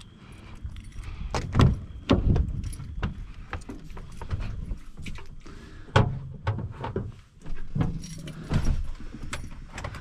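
Keys jangling among a series of knocks, clatters and thumps as someone climbs into a truck cab and handles things there. The loudest thump comes about six seconds in.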